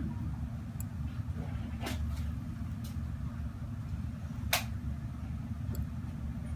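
A steady low mechanical hum, with two short sharp clicks about two seconds and four and a half seconds in.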